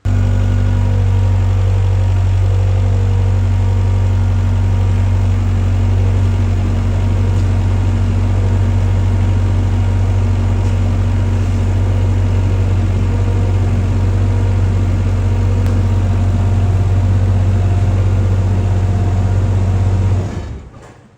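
JCB Robot skid-steer loader's diesel engine idling steadily, then shut off near the end and dying away over about a second.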